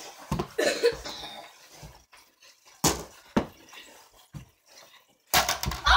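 A few separate knocks and thuds spread through the stretch, then a loud, sudden burst of noise near the end.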